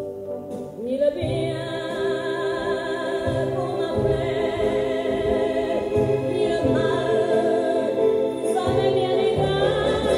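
Music with sustained, layered choir-like singing over a low pulsing bass; it thins out briefly at the start and swells back in with a rising sweep about a second in.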